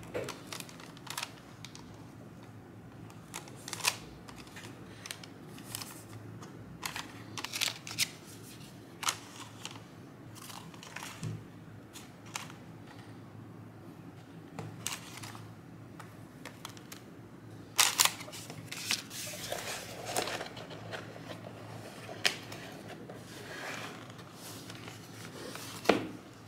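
Hands handling paper packaging: tissue paper and stickers rustling and crinkling, with scattered light taps and clicks against a cardboard mailer box.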